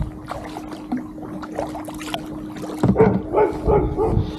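Kayak paddle strokes with water splashing and dripping. About three seconds in, a dog barks about four times in quick succession.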